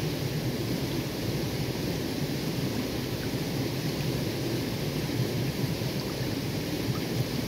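Shallow stream water running over stones and gravel, a steady rush with no breaks.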